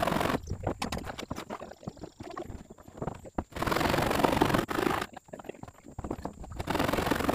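Irregular knocks and taps, with about three stretches of rushing noise each lasting a second or so.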